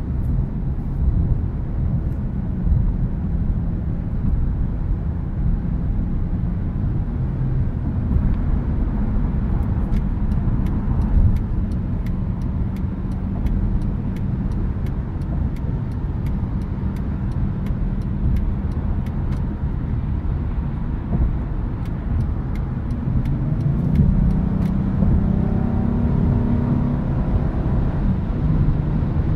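Cabin noise of a 2013 Acura ZDX at highway speed: a steady low rumble of tyres and road with the engine running underneath. About three-quarters of the way through, an engine note climbs in pitch and grows stronger.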